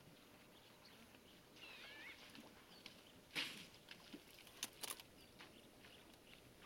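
Quiet natural ambience with a few faint bird chirps and whistles and a handful of short, sharp noises, the loudest about three and a half seconds in.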